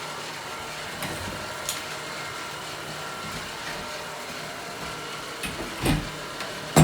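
A few knocks and clanks from work on a copper pipe fitting, over a steady mechanical hum; the loudest knock comes near the end.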